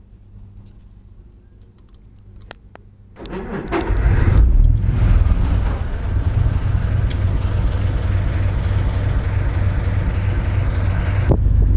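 Boat engine coming up about three seconds in, from a faint low hum to a loud, steady, low, uneven rumble. A few light handling clicks come before it.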